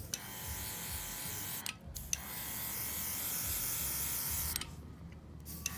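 Airbrush spraying ink through a stencil: a hiss of air over the hum of its small electric compressor, in three spells with two short pauses.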